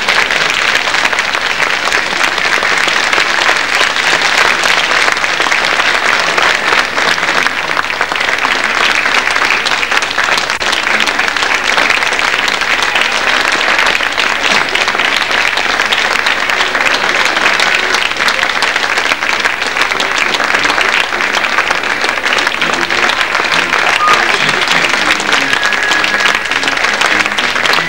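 Audience applauding, dense and steady clapping throughout.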